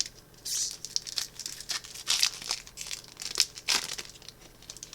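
A foil booster-pack wrapper being torn open and crinkled by hand: a run of irregular crackles and rips.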